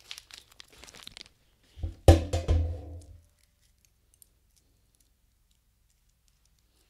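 Brief crinkling and clicking of small-parts packaging being handled, then about two seconds in a loud, low drum-like hit that rings for about a second before dying away.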